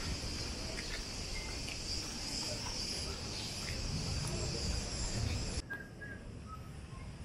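Cicadas buzzing in the trees, a steady high-pitched chorus that cuts off suddenly a little past halfway, leaving faint bird chirps.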